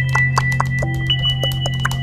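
Music: a steady low drone under held high tones that step up and down in pitch, with many quick, short percussive notes.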